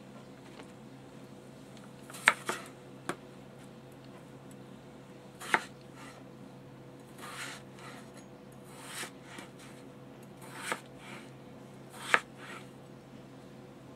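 Kitchen knife slicing potatoes on a cutting board: a handful of sharp knocks as the blade hits the board, irregularly spaced, with softer scraping sounds in between, over a faint steady hum.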